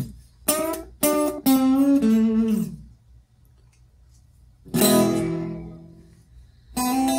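Guitar played through a Korg DRV-2000 digital reverb and multi-effect unit, the notes ringing out with reverb. A few quick picked notes come first, then a pause, then a chord that slowly dies away, and playing picks up again near the end.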